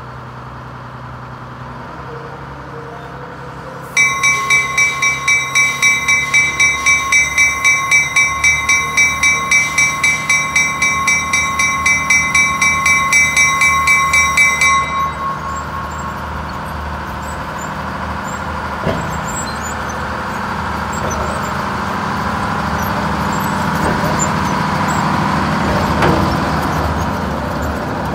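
Diesel switcher locomotive's bell ringing with even strikes, about three a second, for some ten seconds. Then the locomotive runs along the track with steady engine and wheel noise that grows louder near the end.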